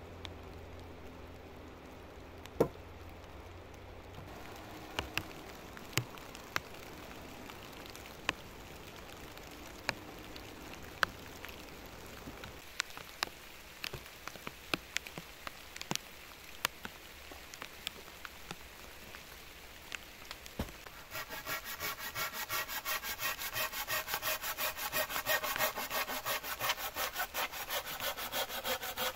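Scattered sharp wooden knocks and clicks as logs are handled. About three-quarters of the way in, a hand saw starts cutting through a thin wooden pole in quick, even back-and-forth strokes.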